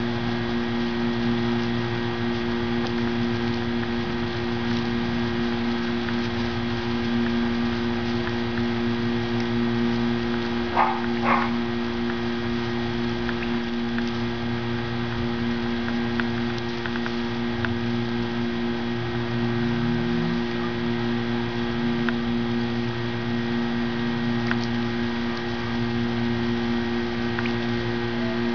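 A steady machine hum, its lowest note coming and going, with two brief high chirps about eleven seconds in.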